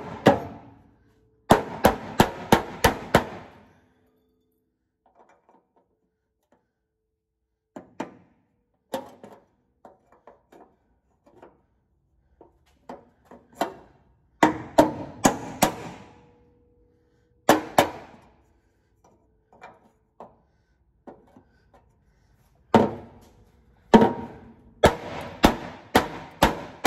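Mallet blows on a car's sheet-metal floor pan from underneath, in bursts of several quick strikes separated by pauses and a few lighter taps. The floor is being knocked up to make clearance for the driveshaft.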